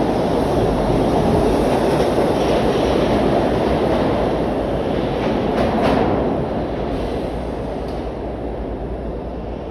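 SEPTA Broad Street Line subway train pulling out of an underground station: a steady rumble of wheels on rail with a few clacks about five or six seconds in. The sound then grows gradually quieter as the train moves away.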